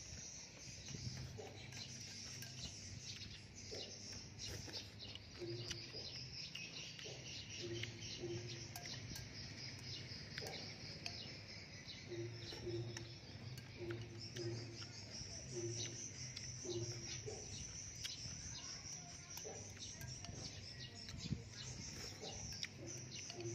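Birds and insects chirping steadily in the background, with soft clicks of chopsticks against a bowl and chewing as noodles are eaten. Short low hums repeat about once a second, mostly in the middle stretch.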